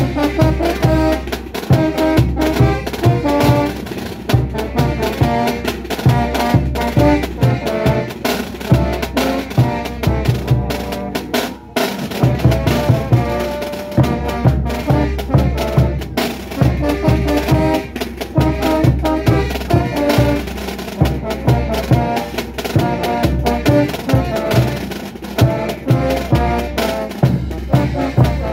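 Band music with brass instruments over a steady, driving drum and snare beat.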